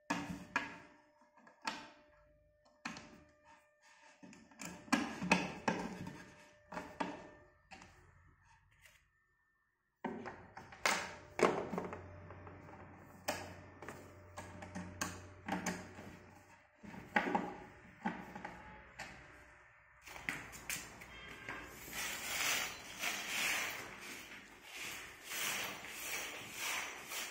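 Hand-assembly knocks and taps: a screwdriver, screws and hands against particleboard cabinet panels. Near the end a denser, busier clatter of loose metal screws and fittings being picked through in a pile.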